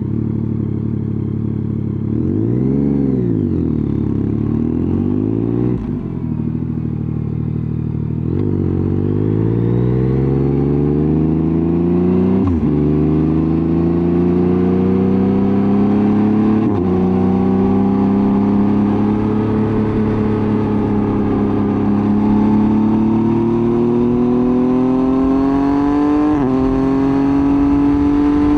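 Yamaha MT-09's CP3 three-cylinder engine through a titanium full exhaust, just started: it idles, blips up and back once about three seconds in, then pulls away. The pitch rises steadily and drops back at each upshift, about a third of the way in, halfway and near the end.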